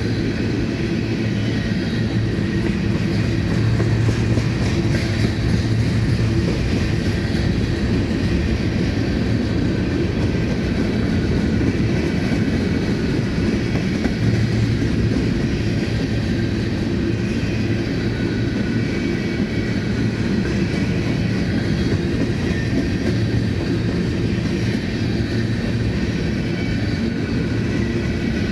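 Long freight train of empty covered grain hopper cars rolling past, a steady rumble of steel wheels on the rails.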